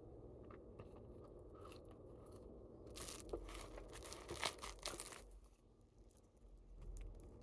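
Crinkling and tearing for about two seconds, starting about three seconds in, as roast chicken and flatbread are handled and pulled apart; a few faint clicks come before it.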